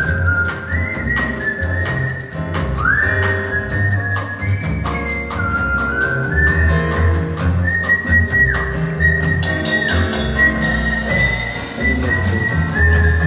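Artistic whistling: a person whistling a melody as one clear pitched line, with several swooping slides up into notes, over backing music with bass and drums.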